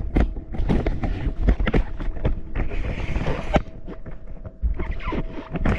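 Repeated knocks and clatter of kitchen items being handled, over a faint steady hum.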